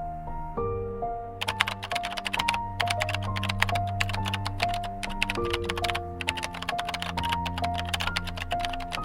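Background music of a slow keyboard melody over a sustained bass. From about a second and a half in, it is joined by a rapid, continuous run of keyboard-typing clicks.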